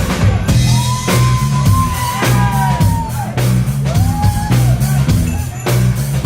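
Live funk band playing between vocal lines: a drum kit and bass groove under a lead instrument that holds two long notes, each bending up and then falling away.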